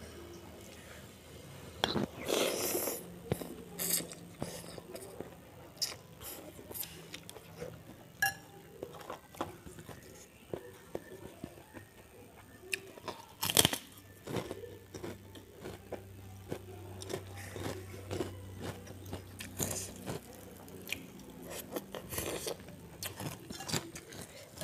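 Close-miked eating sounds: chewing, with bites into crisp kerupuk crackers crunching sharply in clusters, the loudest crunch about halfway through.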